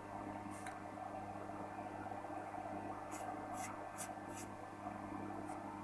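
Subwoofer of a 5.1 amplifier giving a steady low mains hum, with the volume not turned up. It is the sign of a power-supply fault, which the repairer traces to a burnt transformer. A few faint clicks come between about three and four and a half seconds in.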